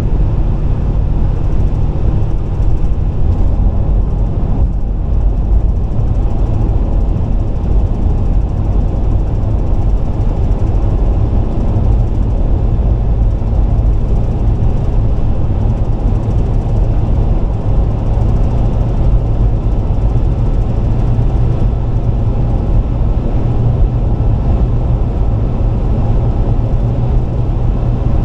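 Car driving at highway speed: a steady, loud low rumble of road and engine noise with no change in pitch.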